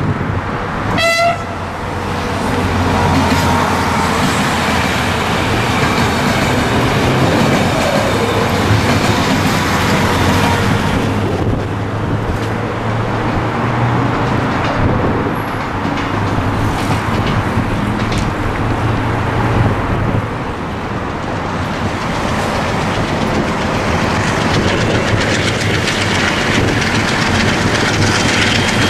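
A train horn sounds one short toot about a second in. Then come the continuous rumble and rail clatter of passing trains, ending with an MLW diesel locomotive working hard, pouring black exhaust, as it hauls a loaded container freight train.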